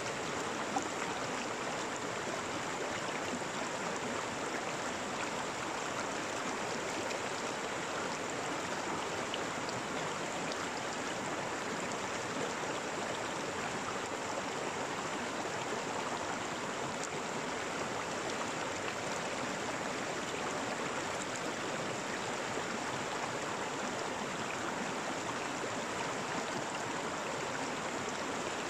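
Stream water flowing steadily, an even rushing without breaks.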